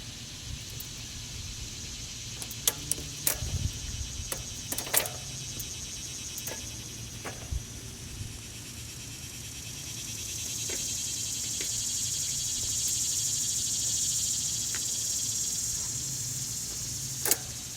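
Scattered sharp metallic clicks and clanks of a bicycle rear wheel, chain and derailleur being worked back into the frame, over a steady high-pitched insect chirring that swells for a few seconds past the middle.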